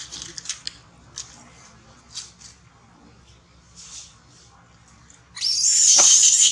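Baby macaque giving short high squeaks, then a loud, shrill crying scream from about five seconds in.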